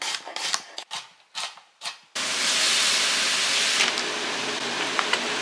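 A chef's knife chopping a red onion on a cutting board, a quick run of separate chops, about four a second. About two seconds in, this gives way abruptly to a steady hiss.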